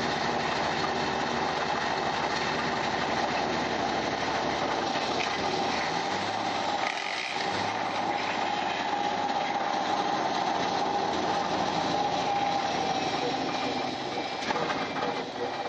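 Diesel engine of a loaded 1993 Mack RD dump truck (300 Econodyne) running under load, heard from inside the cab. About seven seconds in the engine note drops away briefly and returns at a new pitch as a gear is shifted on the 8-speed Eaton transmission.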